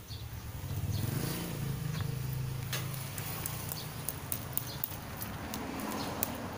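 Hammer tapping a nail into dry coconut flower bud sticks. A string of sharp, uneven taps begins a little before halfway.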